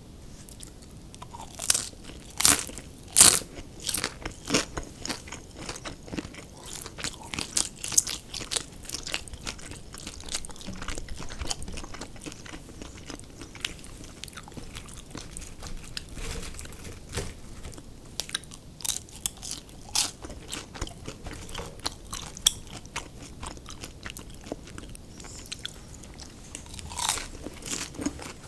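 Close-miked biting and chewing of crispy fried food, with a steady run of crunches and crackles; the loudest, sharpest bites come in the first few seconds.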